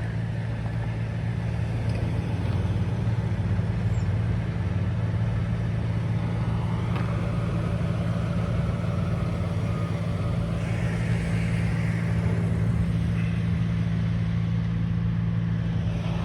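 An engine idling with a steady low hum, with a little extra vehicle noise swelling partway through.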